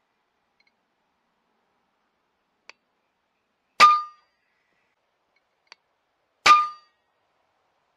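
Two shots from a .22 FX Impact M3 PCP air rifle, about two and a half seconds apart, each a sharp crack with a short metallic ring. A faint click comes shortly before each shot.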